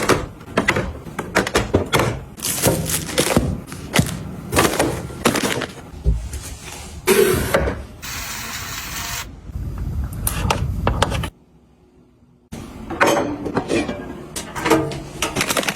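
Objects being handled and set down during organising: a string of clicks, knocks and rustles. About eight seconds in there is a steady hiss for about a second, and shortly after eleven seconds the sound drops away briefly.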